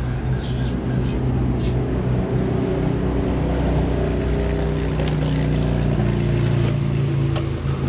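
Craftsman 190cc push mower's single-cylinder engine running steadily, with a few light clicks.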